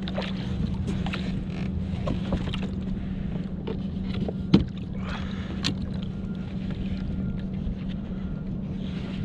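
Small knocks and clatter on a kayak over a steady low wind rumble, with one sharp knock about four and a half seconds in, as a landed sturgeon is handled beside the boat.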